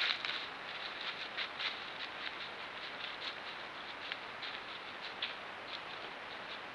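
White-tailed deer walking through dry fallen leaves: irregular light crunches and crackles of its hooves in the leaf litter over a steady hiss, thinning out toward the end as it moves off.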